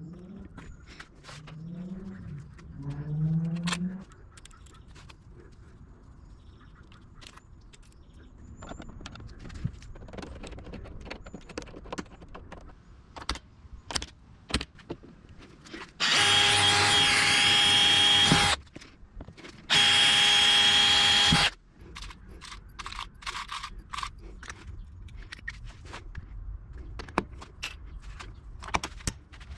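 Power drill running at steady speed in two bursts, the first about two and a half seconds long and the second shorter, amid scattered clicks and knocks of tools and parts being handled.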